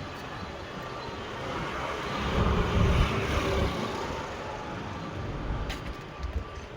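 Road vehicle noise: engine and tyre rumble that swells about two to three seconds in, then eases off again, as a vehicle passes or moves close by.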